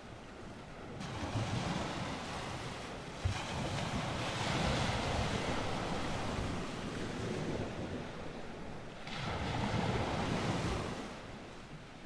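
Ocean waves: a steady wash of water noise that swells about a second in, stays full through the middle, dips briefly, swells once more and ebbs near the end.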